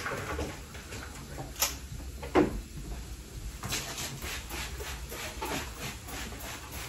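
A couple of sharp knocks, the second the loudest, then from about halfway a run of soft, evenly spaced taps in a small room.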